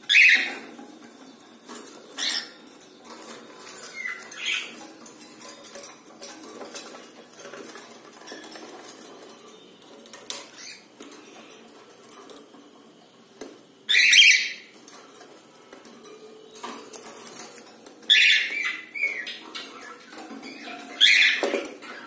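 Cockatiels giving a handful of short, shrill calls, the loudest about two-thirds of the way through, with faint clicks and scuffles of claws and wings on the wire mesh between them.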